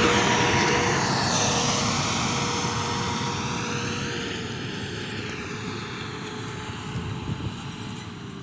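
Hidromek motor grader's diesel engine running as the machine passes close and pulls away, the sound fading steadily; a steady whine over the engine drops a little in pitch as it moves off.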